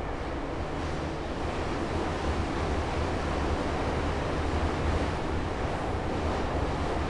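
Steady running noise of an 81-717.5 metro car, heard inside the passenger car as it travels through a tunnel: a deep rumble under a rushing hiss, growing slightly louder after about a second.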